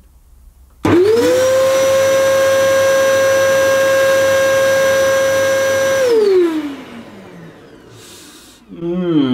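Electrolux Intensity upright vacuum cleaner's suction motor switched on in bare-floor mode (brush roll off), spinning up quickly to a steady high whine for about five seconds, then switched off and winding down with a falling pitch. The owner finds the running sound a little odd but notes these were always noisy machines.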